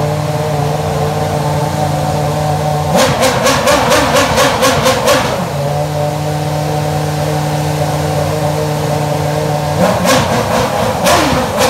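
Race car engine idling steadily, then blipped rapidly, about four sharp revs a second, for a couple of seconds about three seconds in, settling back to idle before a second burst of blips near the end.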